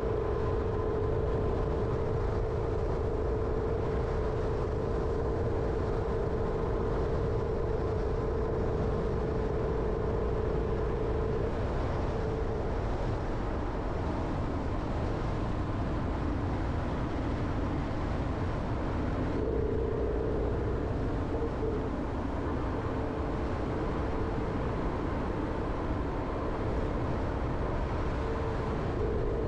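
Jeep Renegade driving along a road: steady engine and tyre noise with a constant hum that dips lower in pitch for a while about halfway through.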